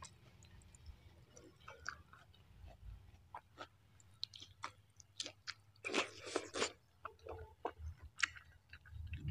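A person chewing a mouthful of food: a string of short, irregular mouth clicks, densest and loudest about six seconds in.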